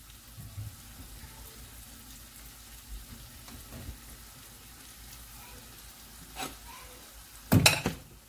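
Spiced meat sizzling gently in an aluminium pot as the spices cook into it. A few light knocks, then two sharp, louder knocks near the end.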